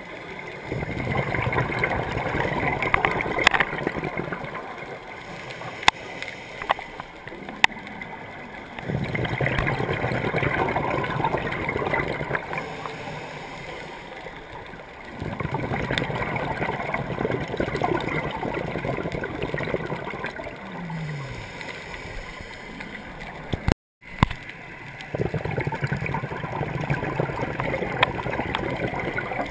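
Scuba diver's exhaled air bubbling and gurgling out of a regulator underwater, in loud bursts of several seconds that come back about every six or seven seconds, with quieter gaps between them while the diver breathes in.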